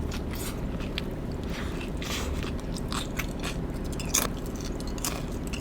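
Biting and chewing a Cajun link sausage: irregular crunchy clicks and mouth smacks, the sharpest about four seconds in.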